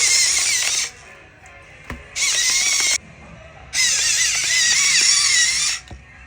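Small electric kitchen appliance motor running in three separate bursts of different lengths, its whine wavering in pitch as the load changes, with quieter background music in the gaps.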